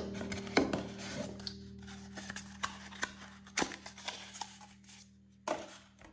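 Cardboard packaging being handled and pulled from a box: rubbing and scraping with several sharp taps and knocks, over a faint held background music chord.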